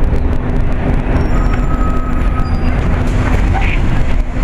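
Interior noise of a moving city bus: a steady low engine and road rumble with a constant hum.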